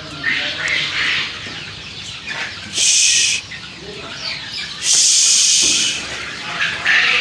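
A flock of young chickens clucking and chirping in a poultry shed. Twice, about three and five seconds in, a loud burst of hissing noise lasting about half a second to a second covers the birds.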